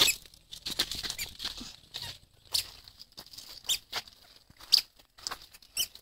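A toddler's squeaker sandals chirp high with each step, about once a second, over the faint scuff of small feet on gravel.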